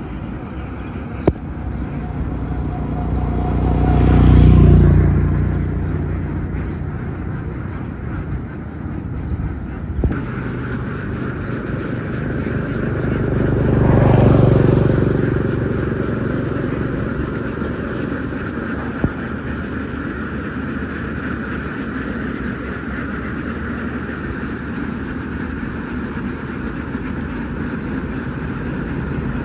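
Two motor vehicles pass by, the first peaking about four seconds in and the second about fourteen seconds in, over a steady engine hum.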